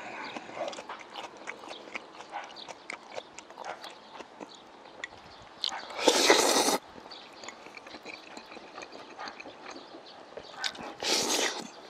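A person slurping spicy chewy jjolmyeon noodles, with two loud slurps: one about six seconds in and another near the end. Soft chewing and wet mouth clicks run between them.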